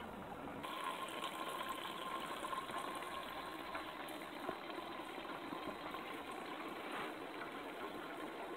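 Water bubbling and trickling steadily, with a faint steady whine for a few seconds.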